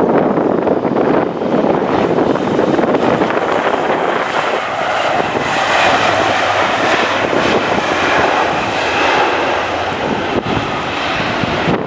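Jet airliner's engines running loud and close during a strong-crosswind landing. The noise moves from low to clearly higher pitches about halfway through.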